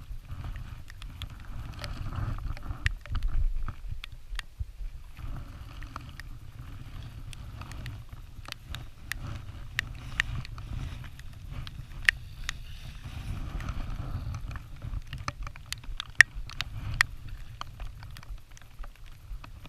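Outdoor wind rumbling on the microphone, with scattered sharp clicks and taps that come more often in the second half.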